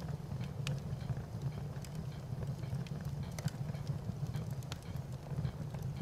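Fire crackling: a steady low rumble with irregular sharp pops and crackles scattered throughout.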